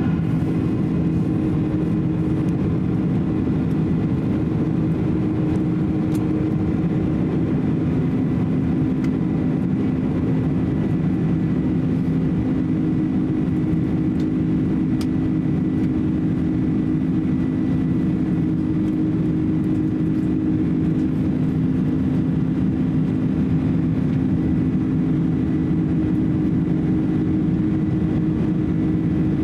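Steady cabin drone of a Boeing 767-300 in flight, heard from a window seat beside the turbofan engine: engine and airflow noise with a few steady low hum tones, unchanging throughout.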